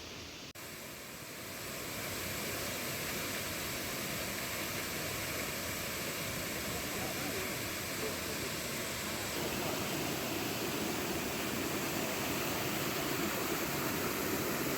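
Steady rush of flowing water, an even hiss. It drops out briefly about half a second in, swells over the next second or two, and grows louder again about ten seconds in.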